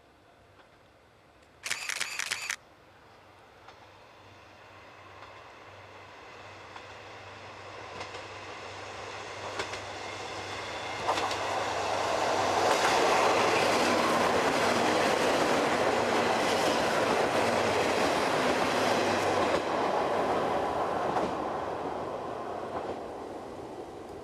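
KiHa 58 diesel railcar train approaching and passing: its diesel engines hum low under the rumble and the clicking of wheels over rail joints, which grow loud, hold for several seconds, then fade as it draws away. A short, loud pitched tone sounds once about two seconds in.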